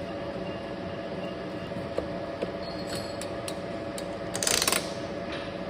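Metal lathe running steadily with a machine hum, with a few sharp clicks and a brief louder scraping burst about four and a half seconds in.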